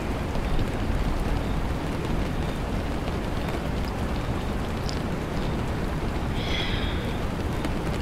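Steady rain, an even hiss with a low rumble underneath, from a background ambience track.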